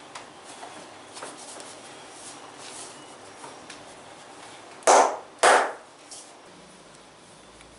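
Two loud hand strikes on a back, about half a second apart, the slaps of a percussive back massage, with fainter taps around them.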